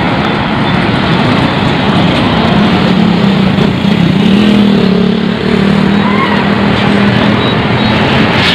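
Vehicles passing close by on a road: an SUV and then an Isuzu box truck, with engine and tyre noise. A steady low drone holds through the middle as the truck comes up.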